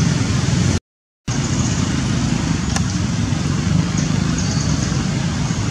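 Steady, loud rushing background noise, heaviest in the low end, broken by a brief total dropout about a second in.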